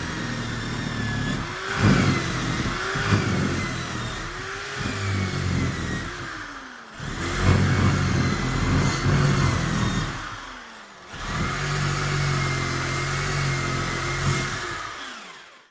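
Handheld electric power tool cleaning back the scooter's aluminium variator cover before welding. It runs in three long bursts, its pitch dipping and recovering as it bites into the metal, and it winds down at the end of each burst.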